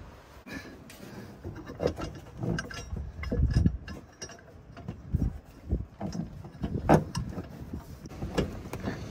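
Irregular metal clinks and knocks as a Fox shock absorber and its mounting hardware are worked into a truck's front shock tower, with the sharpest knock about seven seconds in.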